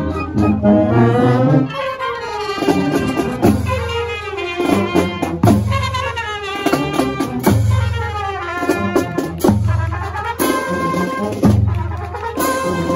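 Marching band playing on the move: saxophones, trombones, trumpets and sousaphones over snare and bass drums and cymbals. The wind parts play repeated falling phrases over a low bass note that comes round every second or two.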